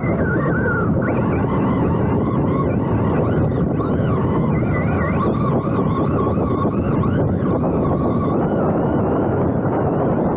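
Electric RC monster truck's motor whining, its pitch rising and falling again and again with the throttle, over a loud, steady rushing noise.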